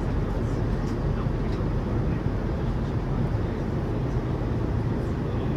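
Steady cabin noise of a Boeing 787-9 in flight: an even, low roar of engines and airflow, with a few faint ticks.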